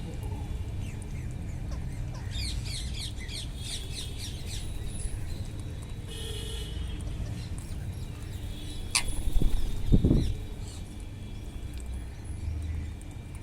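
Wild parrots calling: a quick run of short high chirps about two seconds in, then a single harsh squawk around six seconds in. Near the ten-second mark there is a loud, dull thump, over a steady low rumble throughout.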